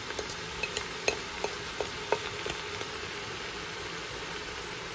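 Light scattered ticks and taps as salt and spices are tipped off a plate onto meat and onion in a stainless steel pot, over a steady hiss.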